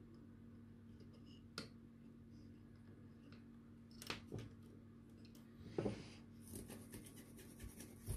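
Faint clicks and a short rustle from hands handling a small circuit board on a workbench, over a steady low hum.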